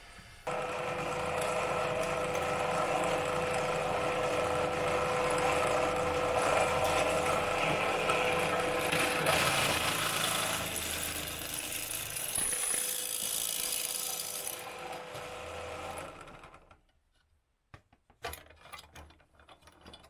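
Bench drill press running and drilling through a crimped copper cable connector held in a drill-press vise: a steady motor hum with cutting noise. It stops about 16 seconds in, followed by a few light clicks.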